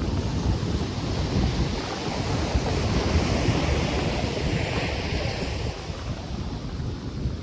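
Ocean surf washing onto a beach, with wind buffeting the microphone in a heavy low rumble; a wave's hiss swells up about four to five seconds in.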